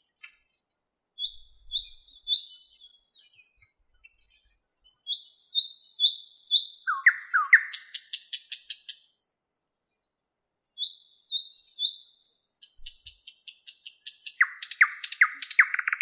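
Thrush nightingale singing: three phrases a second or two apart, each a run of repeated short whistled notes. The second and third run into a fast, dry rattle of clicks.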